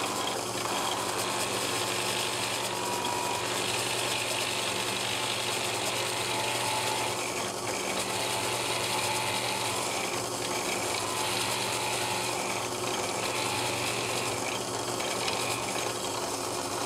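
Drill press running with a steady hum, its bit boring a hook-hanger hole into a turned wooden lure body.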